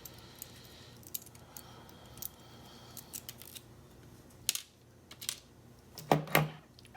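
Small metal clicks and taps as a lock's pins, springs and picking tools are handled while the lock is gutted and its last pin stack is taken out. There are a couple of louder clacks near the end.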